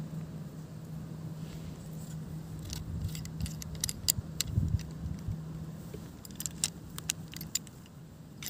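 Small metal clicks and clinks from the hinge of a folding survival shovel being worked by hand while its steel locking pin is taken out. The sharp ticks cluster between about three and seven and a half seconds in, over a steady low hum.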